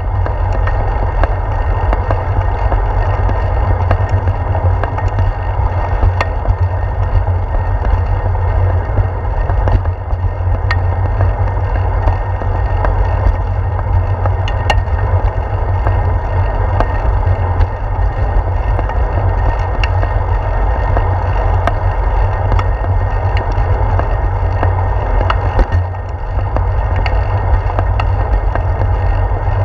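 Steady low wind rumble on a handlebar-mounted GoPro, with rolling noise and rattle from a bicycle riding over a concrete path. Sharp ticks and knocks come through every second or two.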